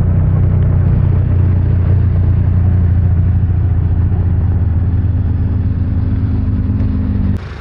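Autocross race car engine running loud at steady revs, holding one deep pitch, cut off abruptly near the end.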